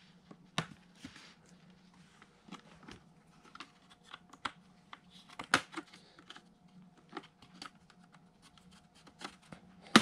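Plastic clips of an HP Omen laptop's bottom cover clicking loose as a plastic pry tool is worked around its edge: irregular light clicks and scrapes, the sharpest about halfway through and again at the end.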